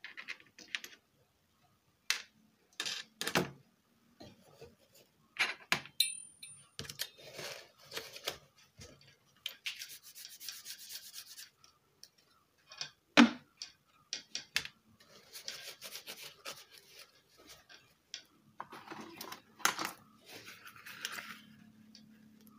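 Parts and tools being handled on a repair bench: stretches of rubbing and scraping, broken by irregular sharp knocks, the loudest about 13 seconds in.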